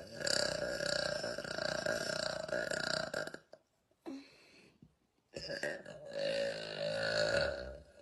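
A person burping: a long drawn-out burp that ends about three and a half seconds in, then, after a pause, a second burp lasting about two seconds near the end.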